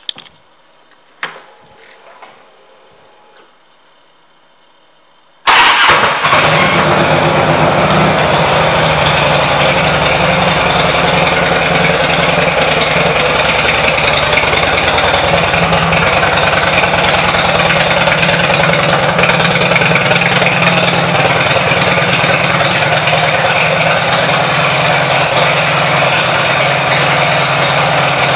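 Harley-Davidson Electra Glide's Twin Cam V-twin engine starting suddenly and then idling steadily and loudly. A sharp click comes about a second in, before the start.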